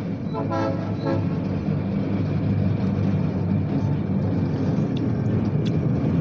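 Engine running with a steady low rumble.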